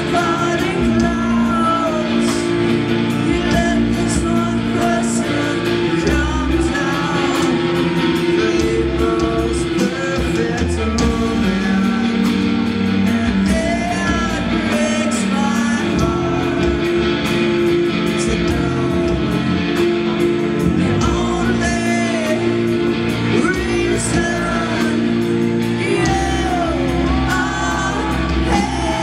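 Live rock band playing: a singer's voice through the PA over amplified electric guitar and bass, the full band sounding in a club hall.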